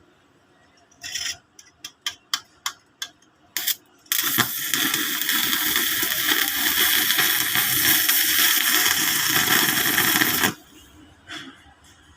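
Stick (MMA) welding arc from a Saneex 280-amp inverter welder burning a No. 10 electrode at about 170 amps. A few short crackles as the arc is struck, then about six seconds of steady frying, crackling arc sound that cuts off suddenly when the arc is broken, and one more brief crackle. The rod runs smoothly, "like water".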